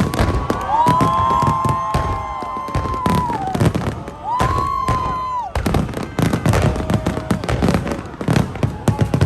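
Fireworks display: a dense, irregular string of bangs and crackles from bursting shells, with two long whistling tones in the middle, the first about three seconds and the second about a second long.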